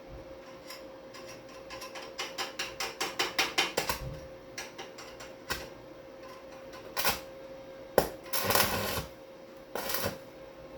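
Metal clicking and clanking from hands-on work on a bicycle's crank and chainring. A fast, even ratchet-like run of clicks, about six a second and growing louder, comes first. It is followed by a few separate metallic knocks and a brief scraping rattle, over a steady low hum.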